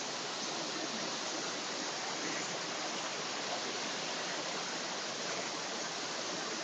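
Steady, even rush of water from a waterfall and its river.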